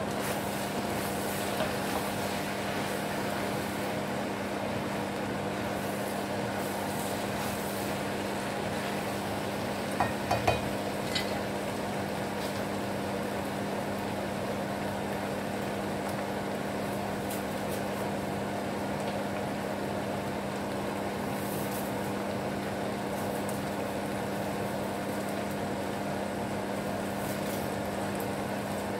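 Flat rice noodles and carrots sizzling as they stir-fry in a nonstick frying pan, over a steady machine hum. A few sharp knocks come about ten seconds in.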